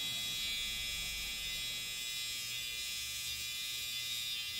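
Electric hair clippers buzzing steadily as they cut hair at the temple.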